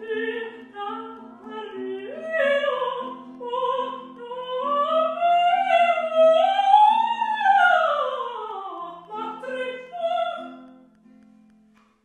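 Classical intro music: a high operatic singing voice with vibrato over sustained low accompaniment. It climbs to a long high phrase, glides back down and fades out near the end.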